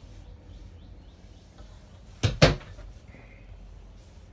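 Two quick knocks of a light door, about two seconds in, over faint room noise.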